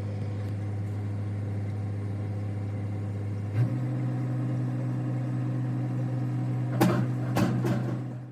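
Heavy farm diesel engine running with a steady low drone. About three and a half seconds in there is a click and the engine speeds up, holding at a higher pitch. A few sharp clicks or knocks come near the end before the sound fades out.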